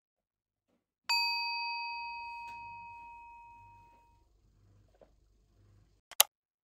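A single bell-like ding about a second in, ringing out and fading away over roughly three seconds, then one short sharp click near the end.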